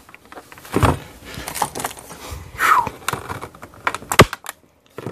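Clicks, crackles and rustles of a rigid clear plastic blister pack being snipped with flush cutters and pulled apart by hand, with one sharp snap about four seconds in, the loudest sound.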